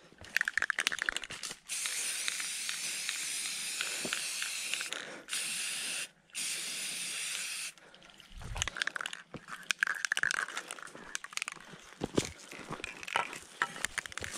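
Aerosol spray-paint can hissing as paint is sprayed onto a tree trunk, in three pulls: a long one of about three and a half seconds, a short one, then a slightly longer one. Before and after, irregular crunching and rustling of footsteps through brush.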